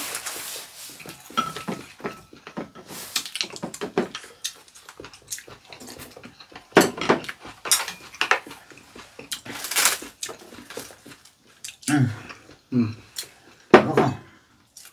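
Chopsticks and spoons clicking and scraping against ceramic bowls and plates during a meal, in quick irregular clicks, with mouth sounds of eating between them.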